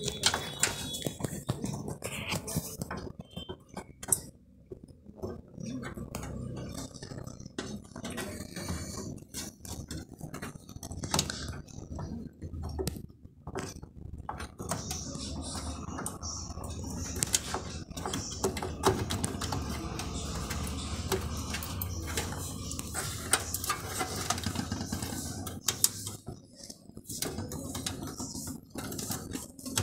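A RAM module being handled and pressed into a desktop motherboard's memory slot: irregular small clicks and rattles of plastic and metal.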